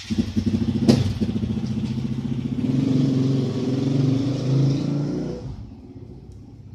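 Caravan mover's electric motors running, driving the caravan along, with a sharp clack about a second in; the drone stops about five and a half seconds in.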